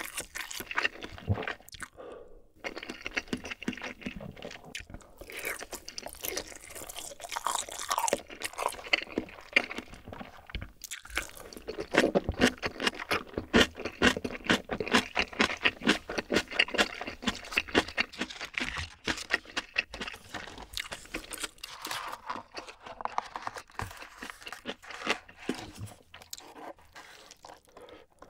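Close-miked chewing of a mouthful of food, with dense crackling clicks. It is busiest in the middle and thins out near the end.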